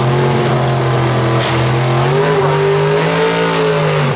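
Second-generation Chevrolet Camaro drag car doing a burnout: its engine is held at high revs while the rear tyres spin. The pitch climbs a little about halfway through, and the revs drop off suddenly near the end.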